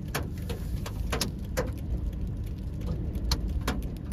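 Scattered raindrops striking the car's windshield and body as sharp, irregular ticks, about two or three a second, over a steady low rumble.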